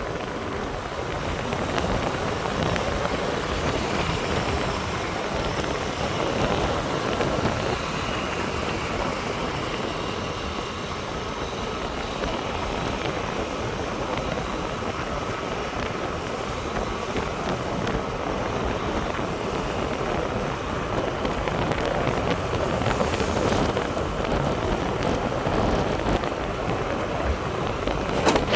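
Steady rushing wind on the microphone over a vehicle running along the road during a ride, with a faint steady whine running through it.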